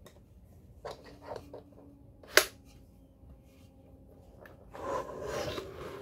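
A wireless keyboard being handled: its plastic fold-out foot clicks, with one sharp snap about two and a half seconds in after a few softer clicks. Near the end the keyboard rubs and scrapes against the table as it is turned over.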